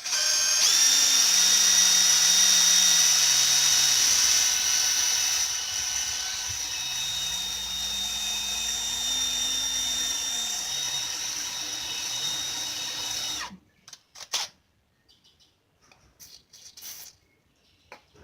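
Power drill boring into the centre of a broken-off steel wheel stud, running steadily with a high whine. It stops about thirteen seconds in, and a few faint clicks and taps follow.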